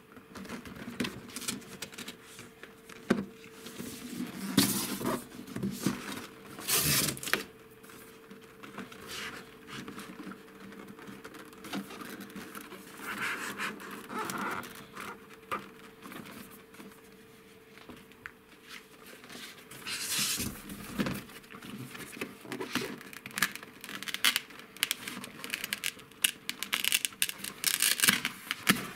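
Cardboard being handled: a printed toy box is turned, slid and pried open inside a corrugated shipping carton, giving irregular rustling, scraping and tapping, with a faint steady hum underneath.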